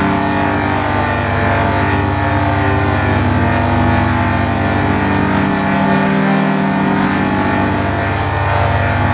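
Loud, steady droning chord of layered, pitch-shifted copies of one sound, the dense stacked tones of a 'G Major' audio-effects edit, held unchanged throughout.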